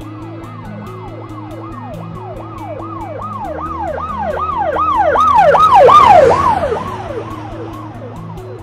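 Emergency vehicle siren cycling in quick rising-and-falling sweeps, about two to three a second. It grows louder to a peak about six seconds in, then drops in pitch and fades as it passes. Low background music with a steady pulse plays underneath.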